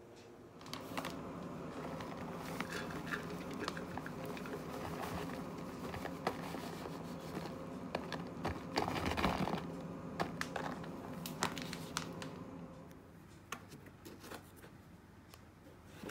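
Rustling and crinkling of a paper flour bag as flour is poured into a bread-machine pan, loudest about nine seconds in. It drops off a few seconds before the end into quieter scraping and light taps of a small spoon scooping brown sugar from a plastic tub.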